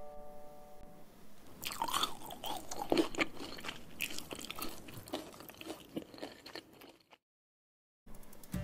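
Crunchy chewing of batter-fried crispy chicken: a run of irregular crackles for several seconds that cuts off to silence near the end.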